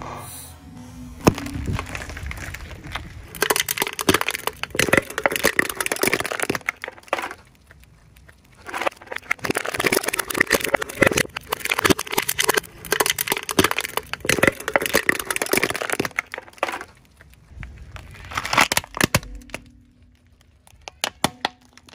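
Car tyre rolling slowly over a row of empty aluminium drink cans, crushing them in bursts of crackling and crumpling metal with quieter pauses between. Near the end it rolls onto a plastic toy, and the plastic cracks.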